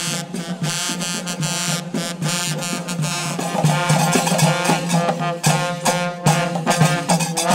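Live Moroccan traditional percussion: a jingling frame drum, clattering qraqeb metal castanets and hand claps beat a fast, even rhythm over sustained tones.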